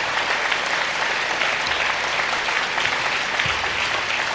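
Large crowd applauding steadily, a dense even clapping.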